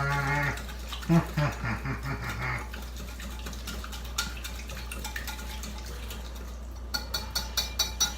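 Wire whisk clicking rapidly against a bowl as a runny oil-and-spice marinade is beaten, the strokes loudest and fastest near the end. A man's low voice is heard briefly at the start.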